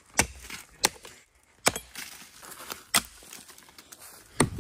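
Dry sticks snapping: about five sharp cracks at uneven intervals, with light rustling in between.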